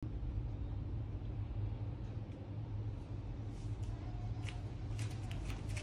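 Steady low background hum, with a few faint short ticks from about halfway through.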